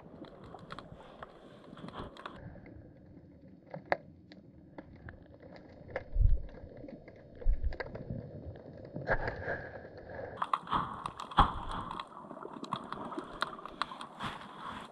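Underwater sound picked up by a GoPro Hero 8 inside its waterproof housing, lowered on a fishing line to the sea floor: scattered sharp clicks and crackles over a low rumble, with a few louder dull knocks from about six seconds in.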